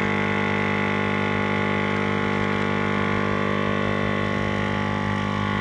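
12-volt portable air compressor running steadily under load while inflating a flat truck tire, a constant motor hum and pump drone.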